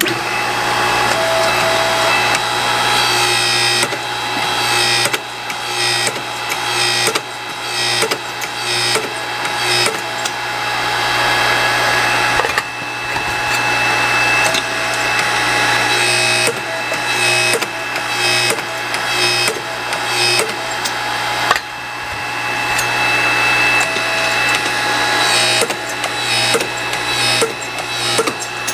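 Electric grinding disc running with a steady motor hum while cut steel exhaust tubing is worked against it to take the burrs off the inside of the pipe. The grinding noise swells and drops off again every couple of seconds as the pipe is pressed on and pulled away.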